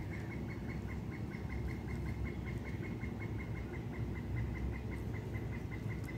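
Steady rhythmic chirping of an insect, one high note repeated about five times a second, over a low rustling noise.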